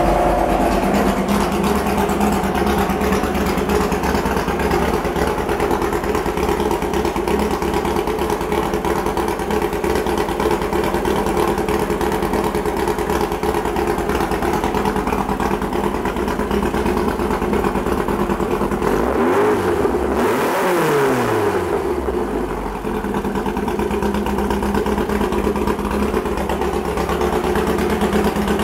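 Freshly built 2332cc air-cooled VW flat-four on twin 48 IDA Weber carburettors, idling steadily through a single stinger exhaust on its first run. About two-thirds of the way through it is revved once, quickly, and drops back to idle.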